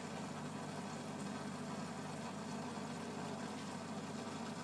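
Steady low hum with a faint hiss over it, unchanging throughout.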